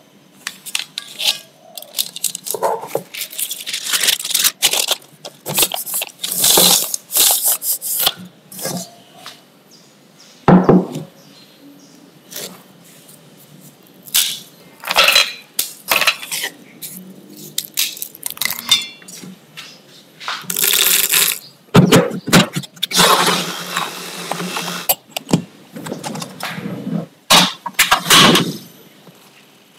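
Close-up kitchen handling sounds: baking paper rustling as it is laid into an aluminium cake pan, then Marie biscuits being snapped by hand into a stainless steel bowl with sharp cracks and clinks, and near the end a gas stove burner being lit.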